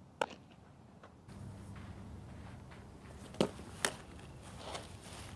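A few sharp knocks and claps from a softball and leather gloves during pitching practice: one near the start, then two louder ones about half a second apart past the middle, over a faint outdoor hiss.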